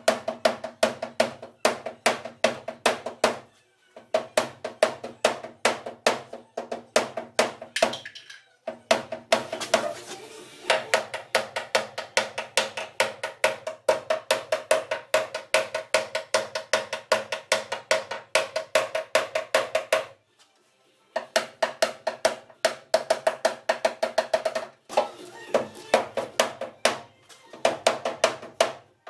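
Rapid hammer taps on the sheet-metal trunk lid of a Toyota Avensis, about four a second, each with a short metallic ring: a dent being tapped out. The tapping stops briefly several times.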